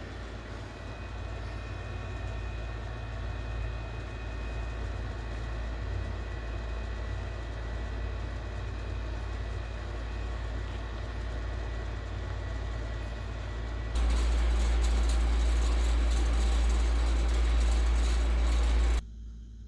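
Ceiling fan running, a steady motor hum with the rush of the blades and a few faint high whine tones. About 14 s in a much louder hum and hiss starts suddenly and runs for about five seconds before cutting off abruptly.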